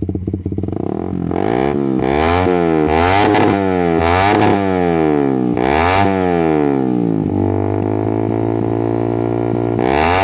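Suzuki GSX-R150's 150 cc single-cylinder engine through an R9 New H2 full-system exhaust with stainless header and no dB killer, idling and then revved in quick throttle blips. The revs climb fast to high RPM and drop back about six times, are held steady for a couple of seconds, then rise sharply again at the end.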